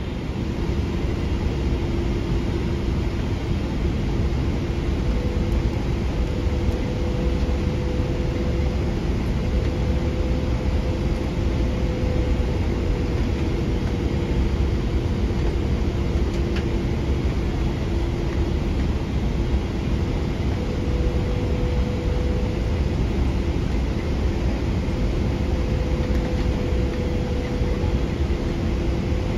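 Steady cabin noise of a Boeing 777-200LR airliner on approach: airflow and engine roar with a low steady hum, and a second, slightly higher hum that comes and goes.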